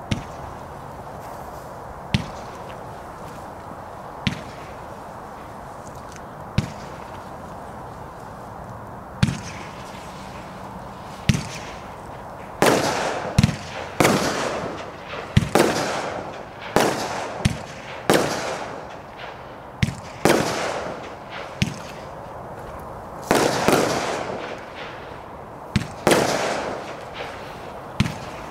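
Zeus Fireworks Twister, a large-bore 36-shot vertical-firing aerial barrage, firing shots from its tubes. For about the first twelve seconds a sharp launch thump comes about every two seconds over a steady hiss. After that the pace picks up, with launches and shell bursts about every second, each burst trailing off in a fading hiss.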